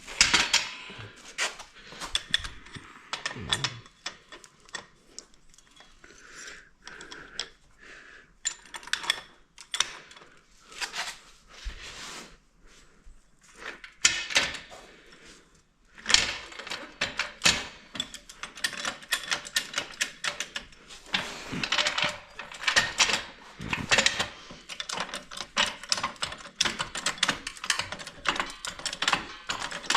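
Hand tools and metal parts clicking and clattering in short, irregular knocks while a quad is worked on, sparse at first and then a dense run of rapid clicks through the second half.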